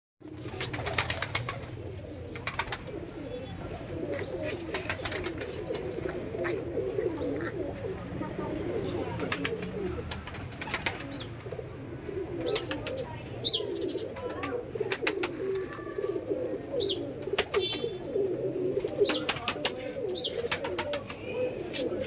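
A flock of white domestic pigeons cooing continuously in a loft, with many sharp clicks mixed in.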